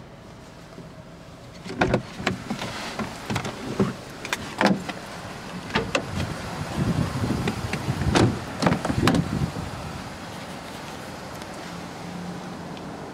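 Irregular knocks, bumps and rustles of handling and movement inside a car's cabin, from about two seconds in until nearly ten seconds. The sound then settles to a low steady hum.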